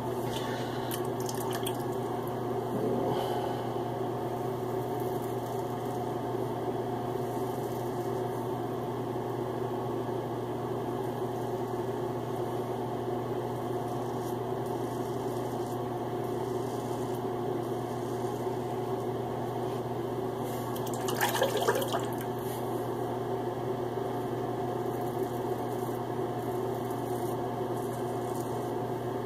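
Steady machine hum with water running, and a short louder burst of splashing about 21 seconds in.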